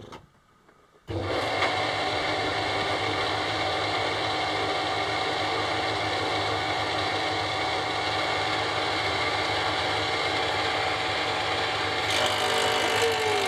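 Old belt-driven thickness planer switching on about a second in and running steadily on its solar-powered electric motor. Near the end a board is fed in and the cutter head starts cutting, adding a hiss over the motor.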